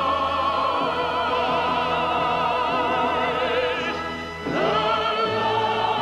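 Operatic singing with vibrato over orchestra and choir in long held notes. The sound dips briefly about four seconds in, then a new held chord comes in.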